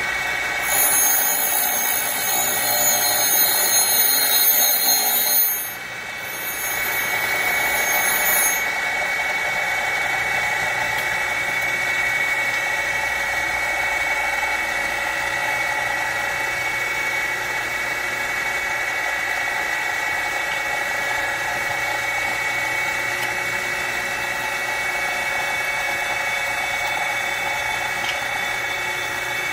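Surface grinder running with the phase converter that powers it, a steady whine. For the first eight seconds or so a louder high hiss rides on top, with a short dip around six seconds, then it stops and the steady whine carries on.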